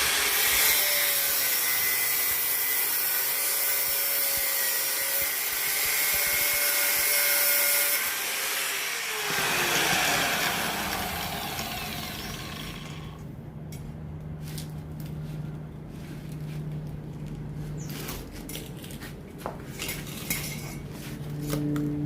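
A power tool runs steadily, then is switched off about nine seconds in and winds down with a falling pitch. After that come scattered light clicks and taps over a low hum.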